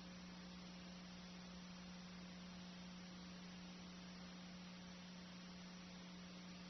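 Near silence: a steady low electrical hum over faint hiss, the empty sound track of old videotaped game film.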